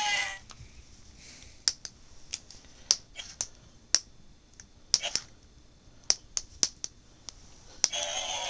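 A string of about fifteen sharp, irregular clicks and ticks as toy figures with plastic parts are handled. Background music stops at the start and comes back near the end.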